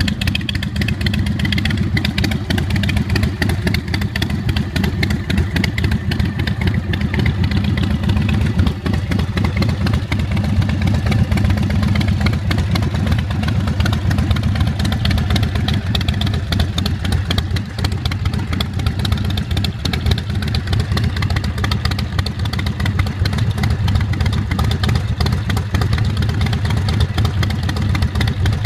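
The 2004 American Ironhorse Texas Chopper's carbureted 111 cubic inch S&S V-twin idling steadily through its Vance & Hines exhaust.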